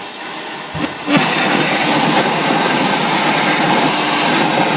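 100 A plasma cutter cutting metal: after a weaker rush of air, the arc starts sharply about a second in and runs as a loud, steady hiss of the plasma jet blowing through the metal.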